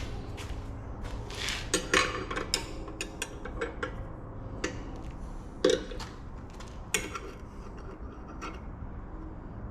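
Loose metal parts and hardware clinking and knocking as they are handled: a string of sharp clinks, the loudest a little before six seconds and at seven seconds, then fewer toward the end, over a steady low hum.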